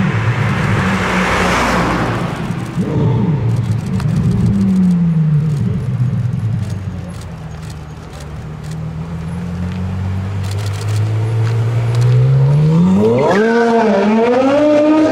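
Straight-piped V10 of a Porsche Carrera GT running on the street at low revs, its pitch falling and rising as the car drives past and turns. In the last few seconds it revs up sharply under hard acceleration.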